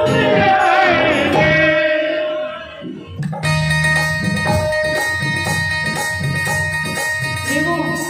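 Bhajan performance: a woman singing a devotional line with a wavering, ornamented voice over hand-drum accompaniment. About three seconds in the voice drops out and an instrumental interlude follows, with steady held notes over an even drum beat, before the singing comes back near the end.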